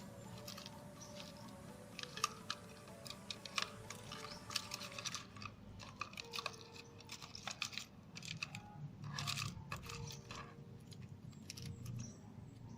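Irregular small clicks and crackles from handling small parts, over faint background music.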